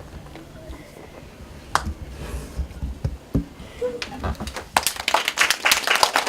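Quiet room noise with a few soft knocks and bumps, then a small group starts clapping about three-quarters of the way in, applauding the end of a read-aloud.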